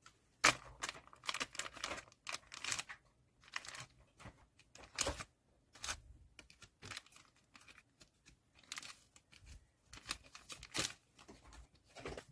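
Plastic packaging crinkling and tearing as photocards are wrapped by hand, in a string of irregular rustles and rips.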